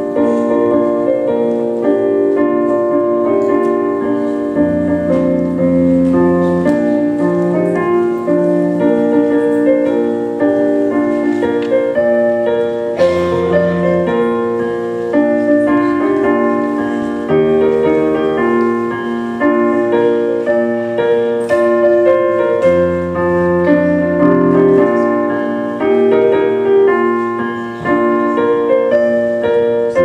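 Slow instrumental music on a keyboard instrument: long held chords with bass notes that come and go beneath them.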